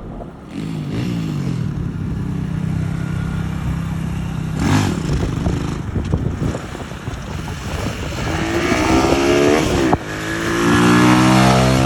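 Small 140cc motorcycle engine running steadily, then revving up twice near the end, its pitch rising each time, with a sudden break between the two revs.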